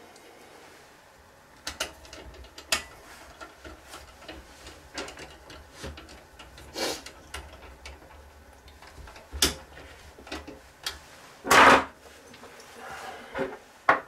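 Small screws and a screwdriver being handled and fitted into a NAS's sheet-steel drive cage by hand: scattered light metallic clicks and knocks, with one louder clunk-scrape late on.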